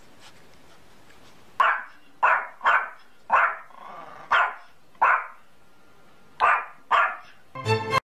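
Small Yorkshire terrier barking sharply, eight short barks at an uneven pace. Music comes in near the end.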